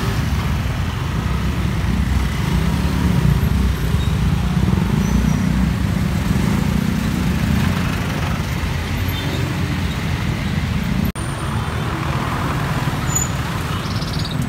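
Heavy city traffic heard from a jeepney: engines of motorcycles, cars and trucks creeping along in a steady low rumble. The sound briefly cuts out about eleven seconds in.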